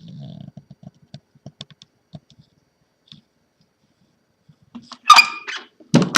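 Light clicks and rattles of the typewriter's wooden carrying case and its hardware being handled, then a sharp metallic clack with a brief ring about five seconds in, and a heavy knock right at the end.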